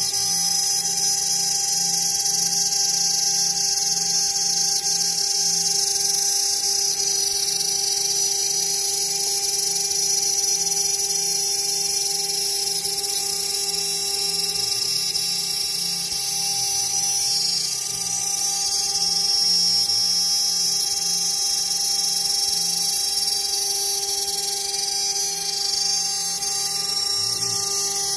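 High-speed CNC spindle running steadily, its end mill cutting a carbon fiber sheet under a stream of water coolant. A constant high whine and hiss sit over a steady hum.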